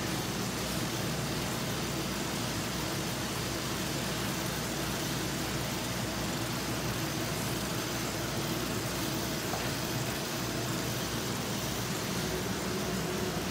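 Steady sizzling hiss of ground meat sautéing in a hot wok on a gas stove, stirred with a wooden spatula.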